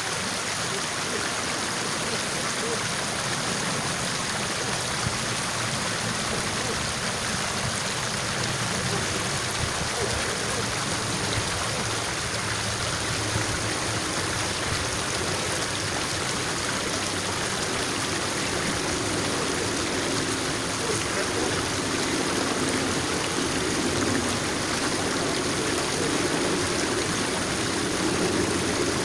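Water rushing steadily along a narrow irrigation ditch, a constant gushing flow over the channel bed.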